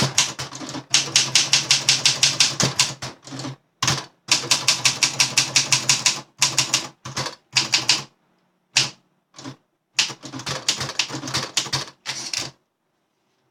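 Olympia SM7 manual portable typewriter being typed on: runs of quick key strikes, about six or seven a second, broken by short pauses and a couple of single strikes, stopping about a second before the end.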